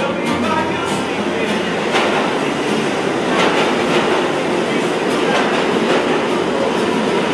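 Subway train running, with a steady rumble and many short clacks and rattles.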